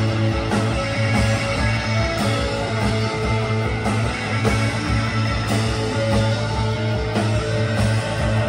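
Live rock band playing amplified music, guitars over a steady low bass line.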